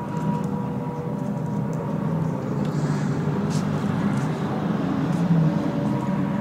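Recorded World War II air-raid sound effect: the steady drone of piston aircraft engines in a dogfight.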